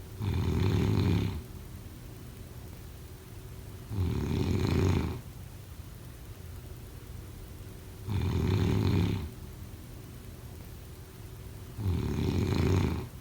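Snoring: four deep snores about four seconds apart, each lasting about a second, in a steady rhythm.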